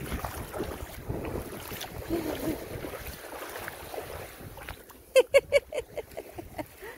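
Steady wind noise on the microphone with beach surf behind it; about five seconds in, a person's voice cuts in with a quick run of short, loud bursts.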